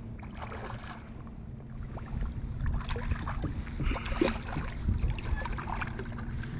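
Hooked striped bass splashing and thrashing at the surface beside a kayak as it is brought alongside: irregular splashes and knocks that start about two seconds in, over a low rumble.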